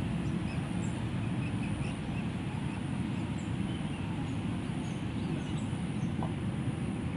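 Steady low rumble of road traffic, with scattered faint bird chirps.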